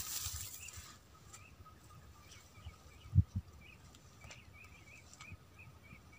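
A bird calling in short chirps repeated two or three times a second, over a faint steady high tone. Two low thumps come about three seconds in, and a hiss fades out during the first second.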